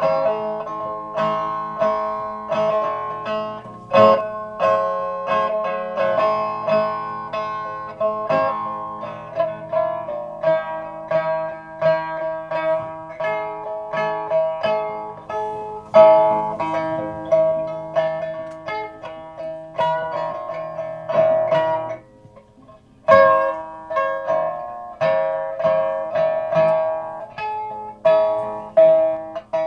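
Instrumental music played on a plucked string instrument: a steady run of plucked notes, each ringing and dying away, with a brief pause about 22 seconds in.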